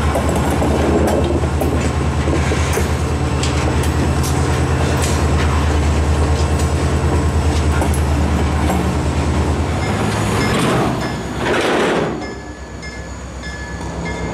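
Freight train cars rolling past at close range: a steady low rumble with repeated clicks of the wheels over the rail joints. About twelve seconds in the sound drops to a quieter steady hum.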